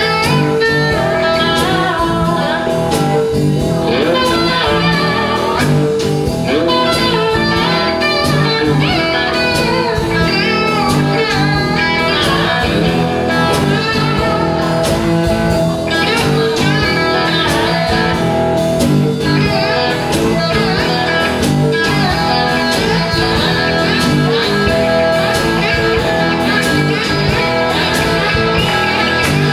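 Blues band playing live: a homemade box guitar over drums and a second electric guitar, with a steady beat and bending, wavering notes.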